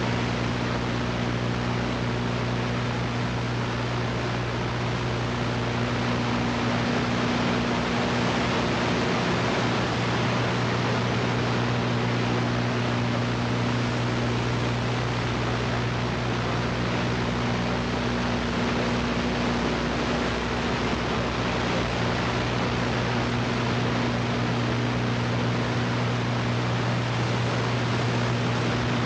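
Steady videotape hiss with a low electrical hum underneath, unchanging throughout: the noise of a blank gap in a VHS recording.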